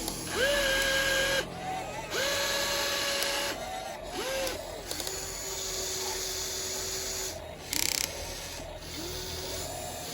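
Small geared electric motors of a Huina 1592 RC excavator whining in short runs as its arm and bucket move, each run of about one to two seconds starting with a quick rise in pitch, five runs in all, one lower and longer in the middle. A brief rattling burst comes about eight seconds in.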